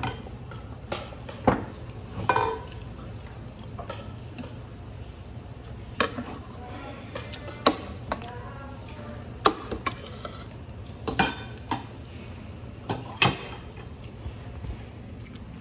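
Metal spoon and fork clinking and scraping on a ceramic plate during a meal: a string of sharp, irregular clicks over a low steady hum.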